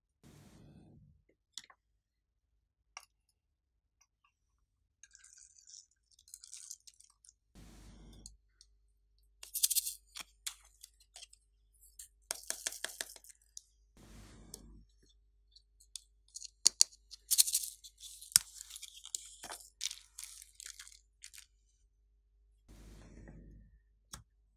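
Small foam beads and sequins poured from containers onto slime in a glass tray, giving bursts of light crackling and rattling. Four short, soft, dull thumps are spaced through it.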